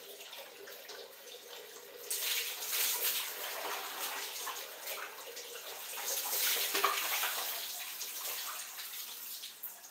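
A wall tap runs steadily into a plastic bucket while water poured from a plastic dipper splashes over a person and onto a tiled floor, loudest about two seconds in and again around six to seven seconds in.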